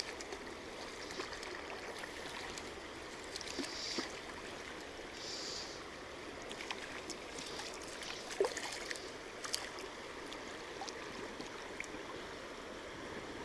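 Shallow river running over gravel, a steady rushing of water, with a few small clicks and brief rustles from fly line being handled.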